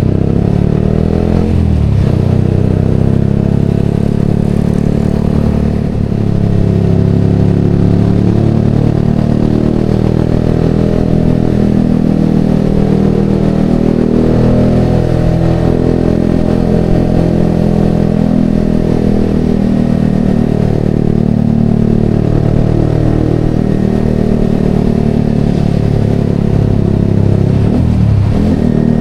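Yamaha XSR motorcycle engine breathing through an aftermarket Vmax exhaust canister, running under way, its pitch rising and falling repeatedly with throttle and gear changes.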